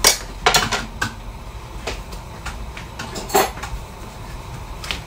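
Metal kitchen utensils clinking and knocking against pans and dishes: a string of separate sharp clinks, loudest at the start and about three and a half seconds in.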